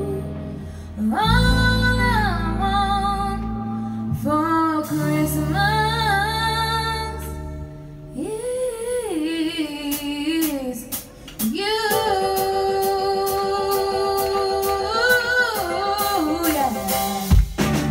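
A young female singer singing into a handheld microphone over accompanying music, her held notes wavering with vibrato. A regular ticking beat joins the music about halfway through.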